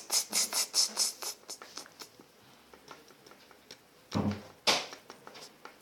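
Small plastic Lego pieces being handled: a quick run of light clicks and rattles over the first second and a half, a few faint ticks, then two louder rubbing knocks a little past four seconds in.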